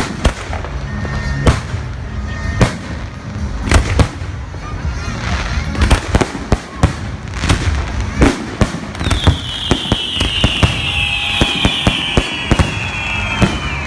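Fireworks display: a rapid, irregular series of bangs from exploding shells. In the last few seconds a high whistle slowly falls in pitch.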